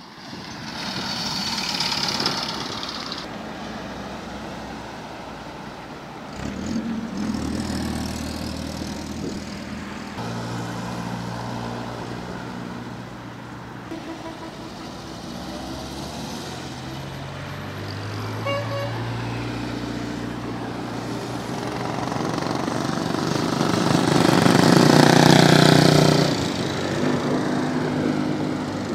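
Vintage cars and motorcycles drive past one after another at low speed, each engine swelling and fading as it goes by. The loudest pass is near the end.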